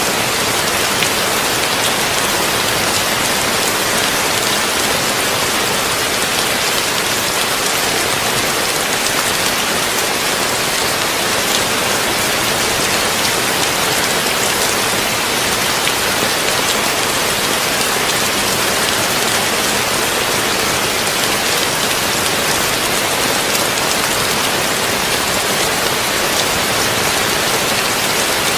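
Heavy rain falling steadily on a tin roof, a dense, even patter of drops.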